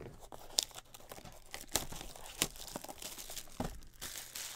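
Crinkling and tearing of plastic wrap and cardboard packaging as sealed trading-card boxes are handled and opened: a continuous crackly rustle with many sharp clicks.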